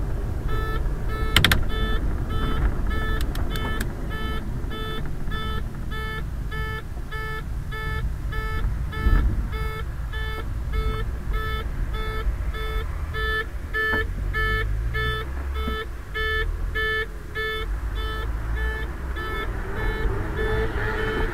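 An electronic beeper sounds a steady beep about twice a second throughout, over the low road rumble of a velomobile riding in traffic. A sharp click comes about a second and a half in.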